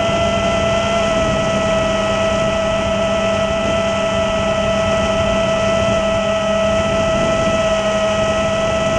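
Steady, high whine of the four 2307 2400kv brushless motors and propellers of an iFlight Battle Axe 5-inch FPV quadcopter holding a steady throttle in flight. The whine is heard close up through the quad's onboard GoPro, with a rushing noise underneath.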